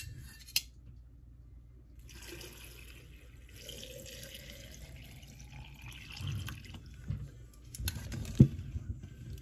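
Liquid pouring into a glass pitcher full of cranberries and citrus slices: a steady splashing hiss whose pitch rises slowly as the pitcher fills. A few glassy clinks and one sharp knock come near the end.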